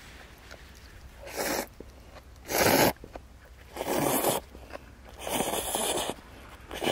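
A person slurping noodles from a bowl of Jeju pork noodle soup, four slurps a second or so apart, the second the loudest.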